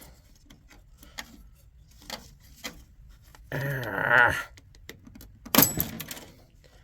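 Plastic and metal parts of a computer server tower clicking and clacking as components are pried and ripped out by hand, with a louder burst of clacks about five and a half seconds in.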